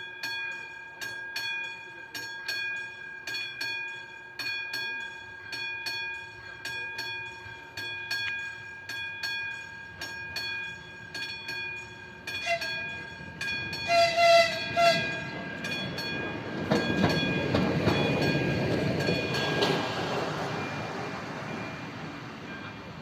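Level-crossing warning bell ringing in a steady rhythm, about once a second. A little past halfway an electric locomotive sounds its horn in a few short blasts, then passes over the crossing with a rush of rail and wheel noise that peaks and fades towards the end.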